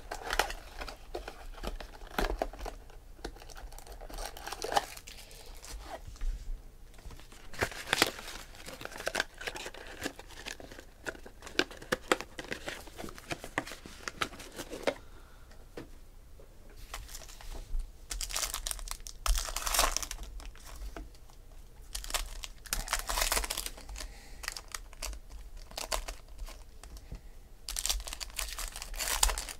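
Trading-card packaging being handled and opened: a cardboard mini-box flap torn and shiny card-pack wrappers crinkled, with many small rustles and clicks and several longer bursts of tearing in the second half.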